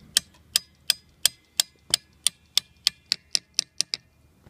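Regular sharp metallic clicks from the exposed clutch mechanism of an Elebia lifting unit, about three a second, quickening to about five a second and stopping shortly before the end.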